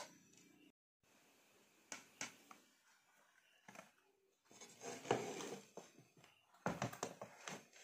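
Faint, scattered clicks and light clatter of a rice scoop and a plastic plate being handled, tapping against the plate and the rim of the pot, with a quick run of clicks near the end.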